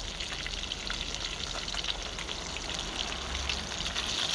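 Fish frying in a pan on a portable gas stove: a steady sizzle dotted with small crackles and pops.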